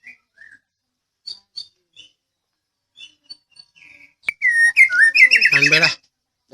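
White-rumped shama (murai Medan) singing: a few soft chirps, then about four seconds in a loud run of clear whistles gliding up and down that turns into a fast rattling trill and stops about half a second before the end.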